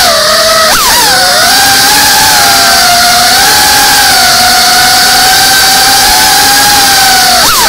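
Brushless motors and ducted propellers of a GEPRC Cinelog 35 cinewhoop drone, a loud high-pitched whine holding mostly steady in flight. The pitch jumps up and dips back about a second in and again near the end as the throttle is punched and eased.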